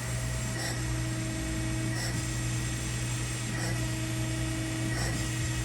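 Harig 618 EZ-Surf CNC surface grinder running its program: a steady spindle hum and whine, with a soft swish that comes back about every second and a half as the table reciprocates. The wheel is not yet cutting.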